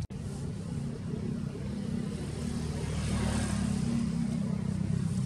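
A low, steady engine rumble, with a rushing noise that swells and fades about three to four seconds in.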